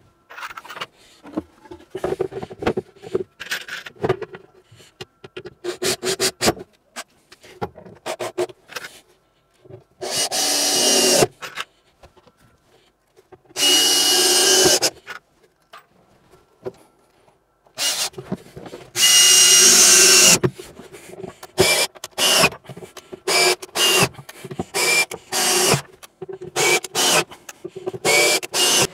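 Makita cordless drill-driver running in three bursts of about one to two seconds each, driving in mounting screws, with a steady whine. Between the bursts come many short knocks and clatters of handling.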